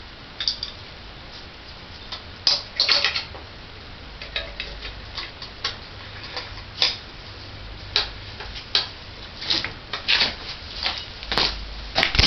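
Irregular sharp clicks and light taps of hand-work on a bicycle's friction-drive motor mount.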